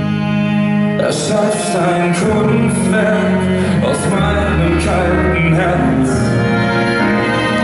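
A man singing a German pop song live into a microphone over instrumental accompaniment. The voice comes in about a second in, over steady sustained chords.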